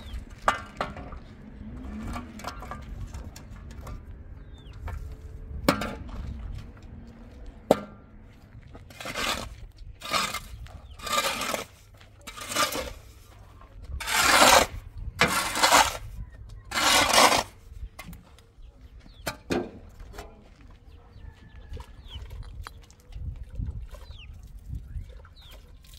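A steel shovel scooping and scraping into a pile of soil, about seven scraping strokes roughly a second apart in the middle of the stretch, with scattered clinks and taps of stone before and after.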